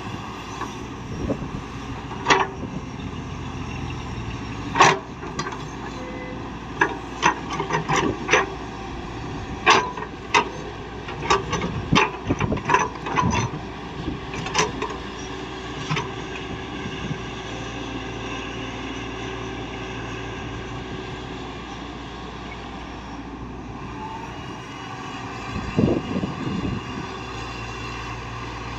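Heavy earthmoving machinery running steadily, with a quick series of sharp knocks from about two seconds in until about sixteen seconds in, and a short cluster of knocks again near the end.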